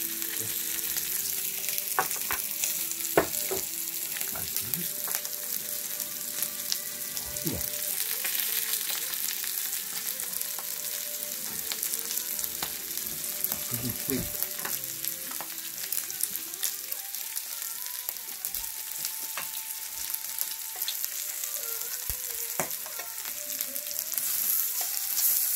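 Meat sizzling on a hot grill plate, hot enough that it is starting to burn: a steady hiss with occasional sharp clicks and knocks.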